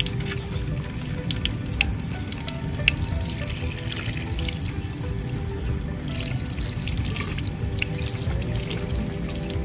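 Tap water running in a stream into a basin, splashing over hands being rubbed and rinsed under it, with scattered small splashes. Background music plays underneath.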